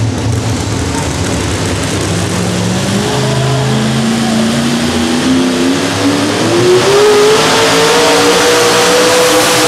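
Modified 4x4 pulling truck's engine, loud, running low at first and then winding up under load, its pitch climbing steadily from about three seconds in and levelling off near the end as the truck drags the weight-transfer sled.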